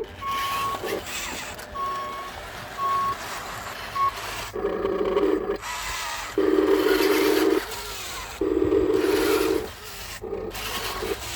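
Radio-controlled excavator and dump trucks working: short electronic beeps at one pitch in the first few seconds, then the models' electric motors buzzing in four separate bursts of about a second each, with pauses between.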